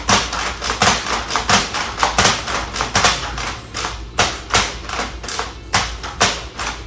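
Nerf Elite 2.0 Flip 32 lever-action foam-dart blaster being primed and fired over and over, a fast run of sharp clacks and pops about two to three a second.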